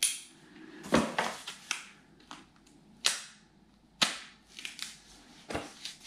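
Paper and plastic packaging crackling and snapping as it is pulled off a charging cable's connector handle: a series of sharp crackles, about six, the loudest about a second in.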